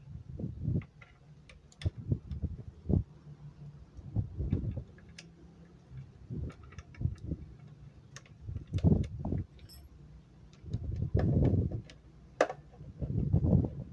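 Bolts and a T-handle wrench clicking, clinking and knocking against the cover of a two-stroke grass-cutter engine as the cover is refitted and its bolts are turned in. The knocks come irregularly, with several heavier dull ones in the second half.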